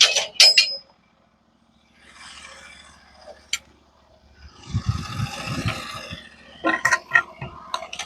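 Metal clanks and knocks with a scraping rumble in the middle as a squared log (cant) is turned over on the bed of a Norwood HD36 portable bandsaw mill. Sharp clanks at the start and again near the end, with low thuds as the timber rolls and settles.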